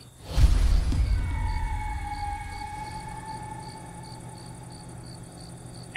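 Crickets chirping steadily at about three chirps a second, over a heavy low rumble that comes in sharply near the start and slowly fades, with a faint drawn-out tone sliding slightly down in pitch.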